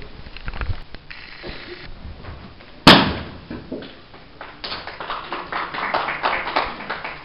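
A single loud, sharp crack about three seconds in, typical of a wooden breaking board being struck and snapping. It is followed by a dense run of quick light taps and knocks near the end.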